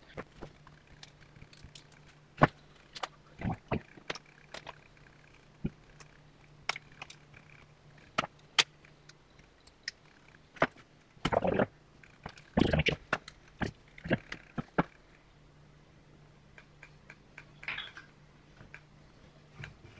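Scattered sharp clicks and scrapes of a hand tool prying fabric tacks out of a wooden speaker frame, with two longer rasps a little past the middle as the cloth cover is pulled loose.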